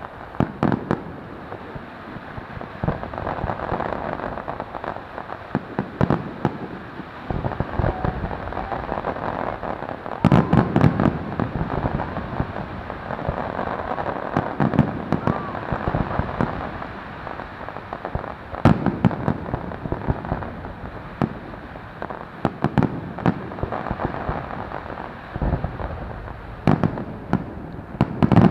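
Fireworks going off: a continuous run of bangs over a dense crackle, with the heaviest bangs about ten seconds in and again near the end.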